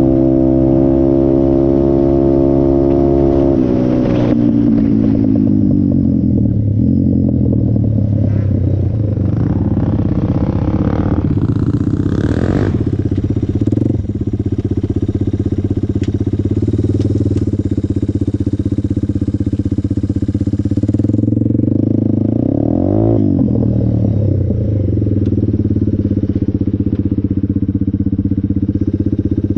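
Off-road vehicle engine running under way, held at steady revs at first, then dropping in pitch about four seconds in. After that the pitch keeps rising and falling with the throttle.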